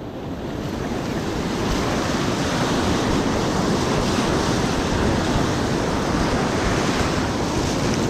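Ocean surf breaking and washing up the beach, swelling over the first couple of seconds and then holding steady, with wind buffeting the microphone.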